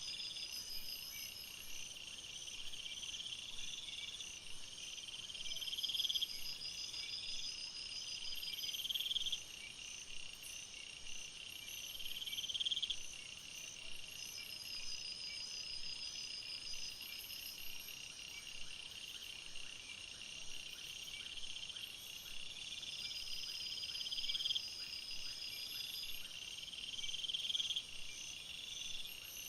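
Night-time forest chorus of insects: steady high-pitched chirring, overlaid with repeated pulsed trills of a second or two each that swell and stop, several callers overlapping.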